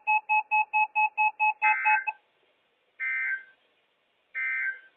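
Rapid electronic beeping of two steady tones, about six beeps a second, that stops about two seconds in. This is followed by three short, warbling EAS/SAME data bursts about a second and a quarter apart: the end-of-message code that closes a NOAA Weather Radio test.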